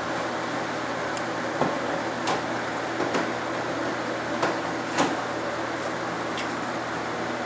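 Several sharp knocks and clicks of wooden boards and tools being handled, the loudest about five seconds in, over a steady fan-like hum.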